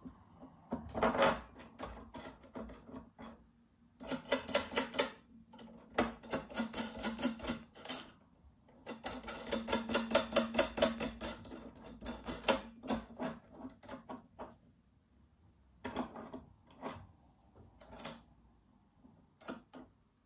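Steel hardware clinking as threaded rods and nuts are fitted to a DIY steel-and-wood proofing press: runs of quick metallic clicks, the longest around the middle, then scattered single clicks toward the end.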